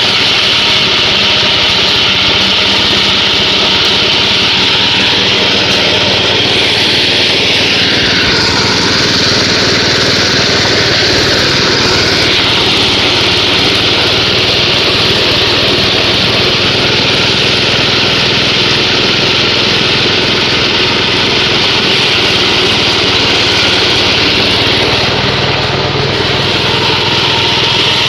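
Small engine-driven multifunction fodder chopper (chaff cutter) running steadily at speed, with a harsher, hissier stretch about 8 to 12 seconds in.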